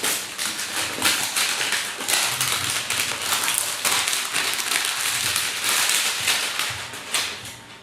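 Sealed lens box being opened: dense, irregular crinkling and rustling of plastic wrap and cardboard packaging, fading near the end.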